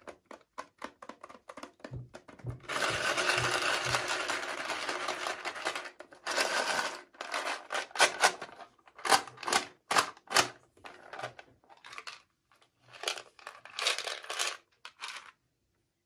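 Toy packaging being handled and opened: small clicks, then a few seconds of continuous crinkling and tearing, followed by short rustling bursts and sharp clicks.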